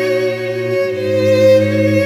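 Background music of bowed strings, violin over cello, playing slow sustained notes, the lower notes shifting to a new chord about a second in.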